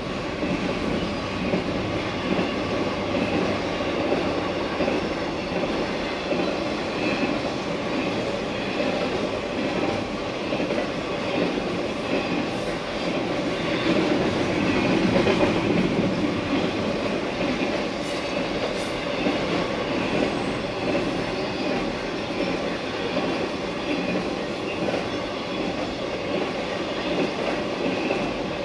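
Double-stack intermodal freight train rolling past at a grade crossing: a steady noise of wheels clattering over the rails, with a faint steady whine above it and a slight swell in loudness around the middle.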